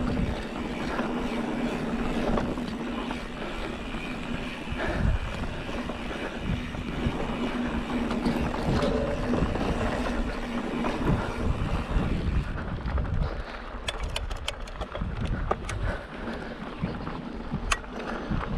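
Mountain bike rolling down a dry, rutted dirt trail: tyres running over the dirt and wind rushing over the camera microphone, with a run of sharp rattles and clicks from the bike over bumps in the last few seconds.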